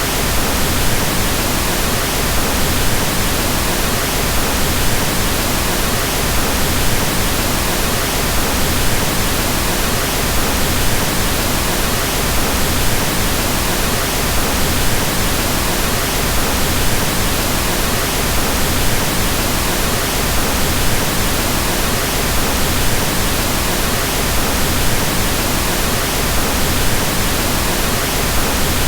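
Steady pink noise: an even, unchanging hiss that fills all pitches, fuller in the lows than white noise.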